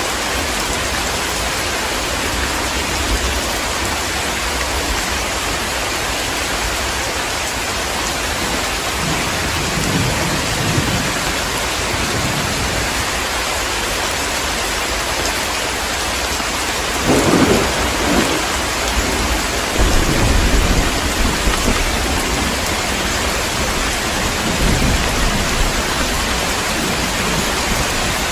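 Heavy, steady rain with thunder: low rumbles roll in several times, the loudest a sharp clap a little past halfway that rumbles on for several seconds.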